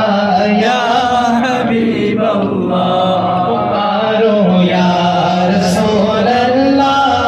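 A man's solo voice singing a devotional chant into a microphone, with long held notes that waver and bend in pitch.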